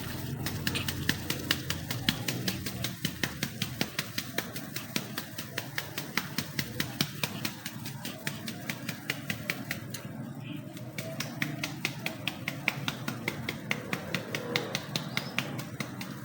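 Rapid, regular light taps, about four a second, with a short pause about ten seconds in.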